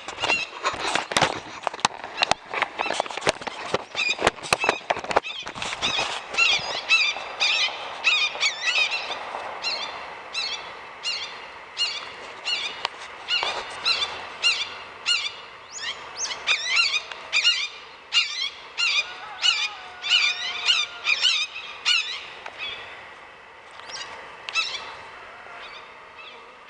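Birds calling overhead in a rapid series of short, high calls, about one or two a second, which the man takes to be red-tailed hawks. A burst of sharp knocks fills the first five seconds.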